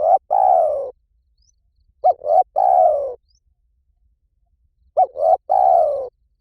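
Spotted dove cooing: a repeated phrase of two short notes followed by a longer falling note, about every three seconds, in the 'liw tan' call style used to lure and train competition doves.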